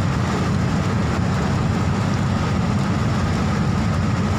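Steady rumble of a vehicle driving on a wet road, heard from inside the cabin: engine and tyre noise with a faint hiss, level and unchanging.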